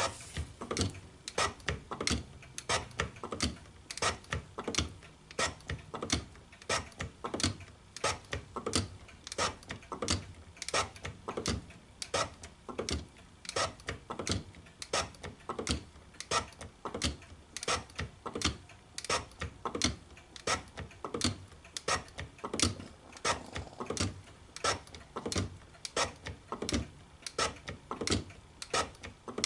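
Hand-operated metal shaper being worked: a steady run of sharp clicks and clacks, about two or three a second.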